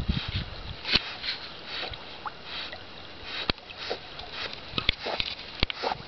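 Golden retriever swimming with a duck in its mouth, breathing hard through its nose in short puffs every half second to a second, with light paddling in the water. A few sharp clicks cut in.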